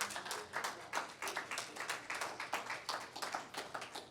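A small congregation clapping and applauding, dense irregular claps that thin out near the end.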